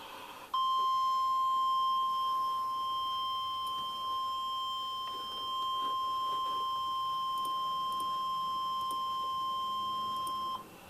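NOAA Weather Radio warning alarm tone, a single steady 1050 Hz tone. It starts about half a second in, holds for about ten seconds and cuts off sharply near the end, signalling that a watch or warning is about to be read.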